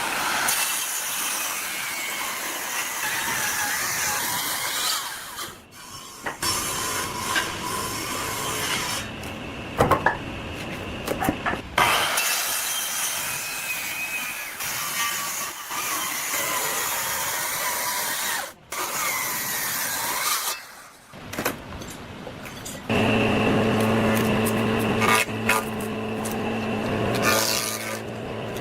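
Tools working wood, a sawing or cutting noise that stops and restarts several times. Near the end a steady motor hum starts up.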